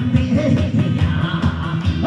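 Loud, upbeat trot music with a steady beat.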